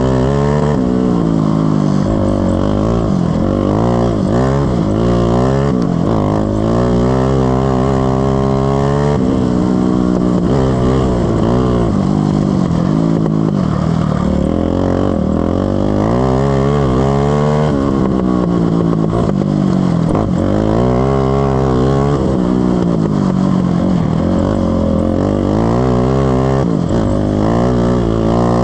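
Racing ride-on lawn mower engine running hard, its pitch rising and falling every few seconds as it revs up and eases off.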